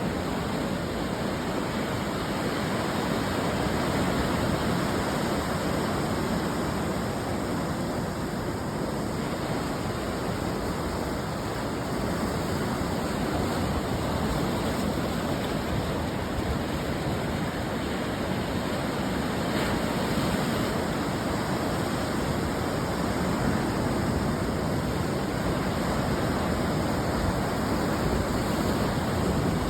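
Ocean surf breaking on a beach: a continuous, steady wash of surf noise that swells and eases slightly.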